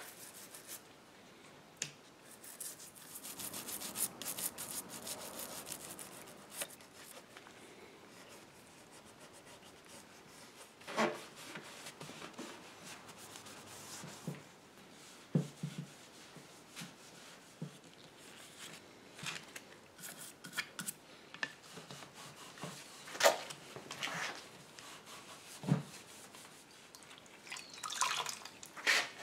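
A damp cloth rag being rubbed over a mahogany chair's wooden posts and rails, with a long hissy stretch of wiping a few seconds in. Scattered light knocks and clicks follow, the loudest about three quarters of the way through, and near the end the rag is wrung out, dripping into a plastic bucket.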